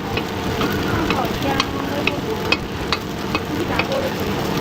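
Food frying in hot oil with a steady sizzle, overlaid by sharp taps about two a second as the food is stirred in the pan.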